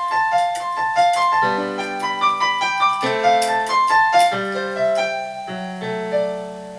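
Electronic keyboard played with a piano voice: a flowing melody of quick notes over held lower chords.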